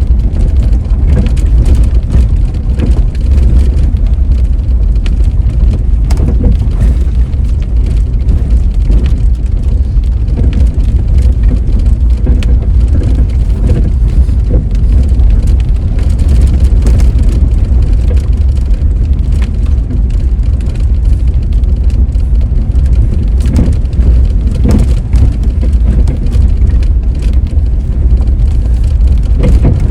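A car driving on a bumpy road: a steady low rumble of engine and tyres, with frequent small knocks and rattles.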